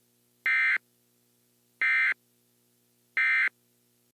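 Emergency Alert System end-of-message data bursts: three short, identical bursts of screeching digital SAME code, about a second apart, signalling that the alert message is over.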